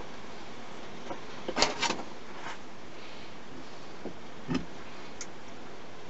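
A few light clicks and knocks of hands handling cable and pliers at a wooden wire-stripping jig, the loudest a short cluster about one and a half seconds in, over a steady hiss.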